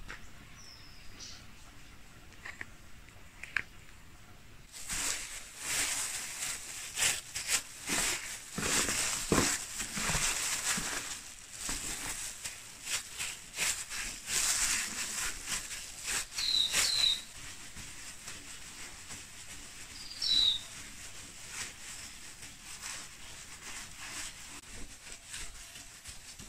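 Plastic-bag gloves crinkling and rustling as hands knead and pat a sticky candy mass in flour on a woven bamboo tray, loudest for about twelve seconds starting about five seconds in, then softer. Short bird chirps come through a few times.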